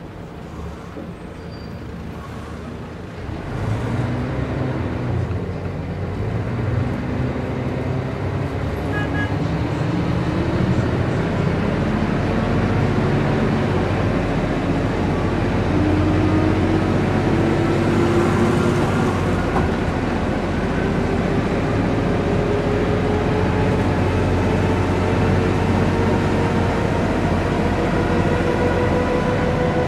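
Mercedes-Benz O405 N² city bus heard from on board by the driver's seat, its diesel engine pulling the bus along. The sound gets louder about three and a half seconds in, and the engine note then climbs slowly and steadily as the bus gathers speed.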